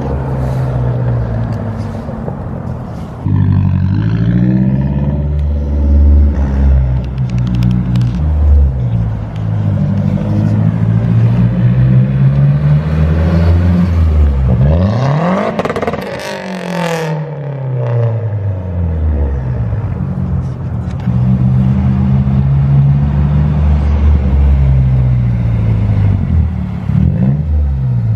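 A 2009 Mazdaspeed3's turbocharged four-cylinder, with a catted downpipe, resonators deleted and the stock muffler, accelerating hard through the gears with a loud exhaust. About halfway through, the car passes close by with a rush of noise and the engine pitch drops away.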